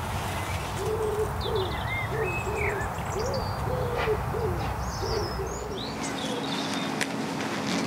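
Garden birdsong: a low hooting call, repeated several times over the first five seconds or so, with higher songbird chirps and whistles throughout.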